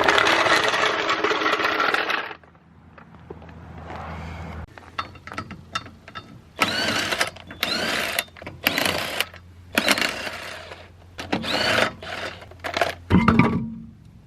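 Power impact wrench run in short bursts, spinning the lug bolts off the wheels. There is a longer run at the start, then about six short bursts, each with a rising whine.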